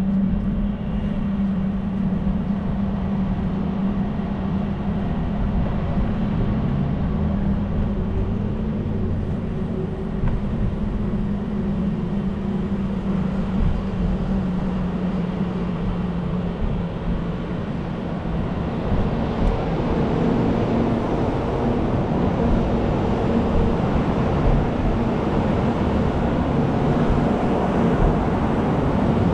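Steady low hum and rumbling noise of riding along city sidewalks. The rumble grows louder and rougher in the last third.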